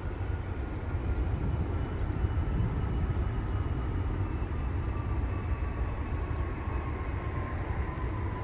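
Boeing 777-300ER's GE90 turbofan engines on the landing rollout: a heavy, steady low rumble with a thin whine that slowly falls in pitch.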